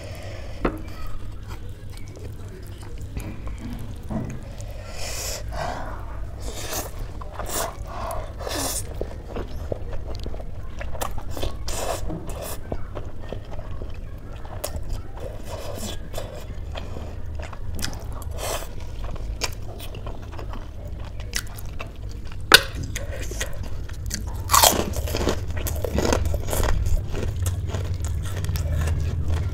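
Close-miked chewing and slurping of spicy Maggi instant noodles: wet mouth smacks and small irregular clicks throughout, with one sharp click about three-quarters of the way in. A steady low hum runs underneath.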